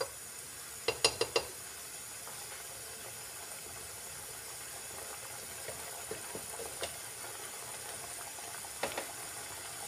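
Thick creamy gravy boiling in a non-stick pan, a steady low bubbling hiss. About a second in comes a quick run of about four clinks of the ladle against the pan, with another short clatter of utensils near the end.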